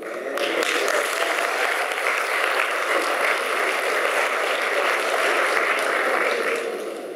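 Congregation applauding, steady clapping that dies away near the end.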